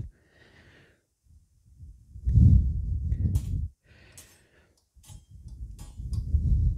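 Two long, rumbling breaths on the microphone while a CB antenna is screwed into a magnetic mount by hand, with a few light clicks and scrapes from its threaded base being turned.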